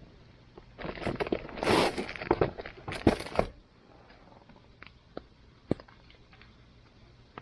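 A few seconds of loud crunching and rustling, like handling or movement close by, then a few sharp single snaps from the burning campfire.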